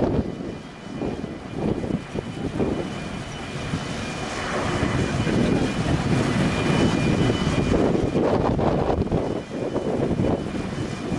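Steady roar of a large car ferry's engines and thrusters working while it berths, with a faint high whine over it from about three seconds in, and wind buffeting the microphone in gusts.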